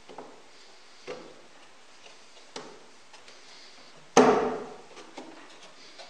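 A fist strikes the top plywood plate of a slider blast gate once, about four seconds in: a single loud thump. Before it come a few light wooden clacks as the plates are handled and fitted together.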